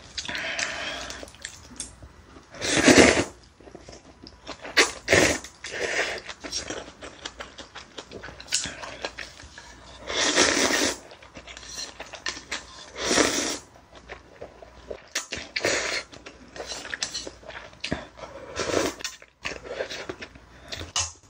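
Close-miked eating sounds: ramen noodles and stew broth slurped in several loud bursts, the biggest about three seconds in and again around ten and thirteen seconds, with chewing in between.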